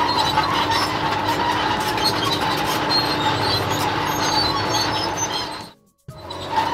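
Steady mechanical running and grinding noise from a machine sound effect, with a constant hum under it. It fades out about five and a half seconds in and starts up again just before the end.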